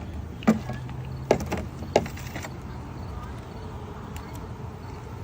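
Three sharp clacks, a little under a second apart, over a steady low hum.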